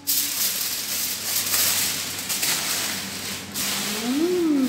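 Steady rustling and rubbing, the sound of flatbread being handled and the recording phone being moved. Near the end a voice gives a short rising-and-falling hummed 'mmm' while chewing.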